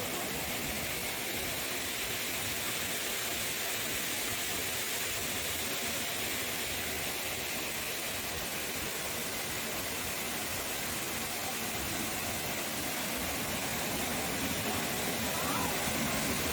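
Steady rushing of water falling at a mountain waterfall.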